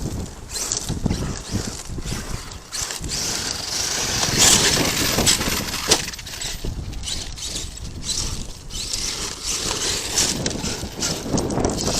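Arrma Kraton 8S brushless RC monster truck driving over rough, rocky dirt: its tyres crunch and scrabble over stones and gravel, with a run of sharp knocks and bumps as it bounces over the rocks.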